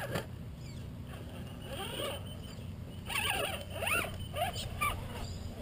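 Birds calling in warbling, rising-and-falling notes, busiest in the second half, over a steady low rumble.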